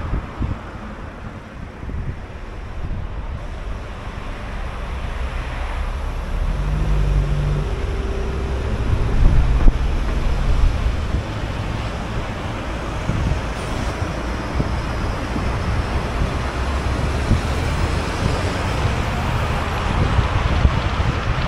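Car driving through city streets: steady engine rumble and tyre noise with wind on the microphone, growing louder toward the middle.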